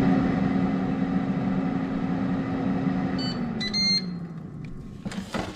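Ninja AF100UK air fryer's fan running steadily in the last seconds of its cooking cycle, then a few high beeps as the timer ends and the fan hum falls in pitch as it winds down. A short clatter near the end.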